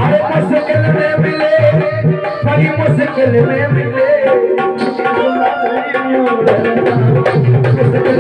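Live devotional bhajan music: a harmonium carrying the melody over a hand drum beating a steady rhythm, with a man's singing voice.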